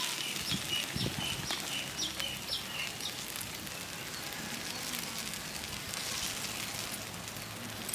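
Idlis and onion-tomato masala sizzling steadily on a hot dosa tawa, with metal spatulas scraping and knocking on the griddle as they are turned. A bird chirps a quick run of short notes in the first few seconds.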